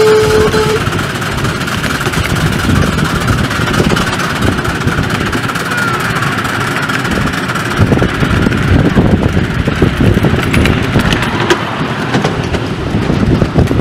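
A 7¼-inch gauge miniature steam locomotive, GWR 38xx No.3802, heard from the train it is hauling. A steady whistle tone cuts off under a second in, then the train rumbles along with irregular clicks and knocks from the wheels on the track.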